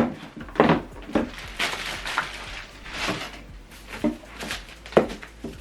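Handling noise from a soundbar being turned over and set down: about six separate knocks, with rubbing and rustling between them.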